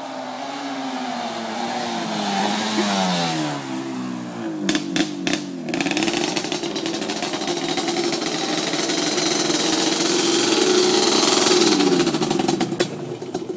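1990 Yamaha Banshee's twin-cylinder two-stroke engine on T6 pipes, being ridden: the revs fall over the first few seconds, a few sharp cracks come about five seconds in, then it revs higher and grows louder until near the end, when it drops away. A crisp two-stroke sound.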